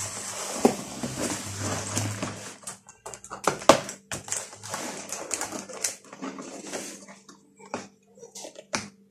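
Cardboard box and packaging being opened by hand: rustling and scraping, then from about three seconds in an irregular run of sharp clicks and crackles as the flaps and inner packing are pulled at.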